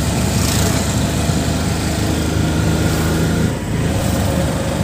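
Steady rumble of a car's engine and running noise, heard from inside the cabin.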